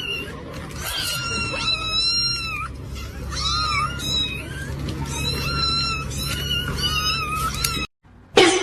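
A cat meowing over and over in a string of high, drawn-out cries, some overlapping, over a low steady hum. The cries break off suddenly near the end.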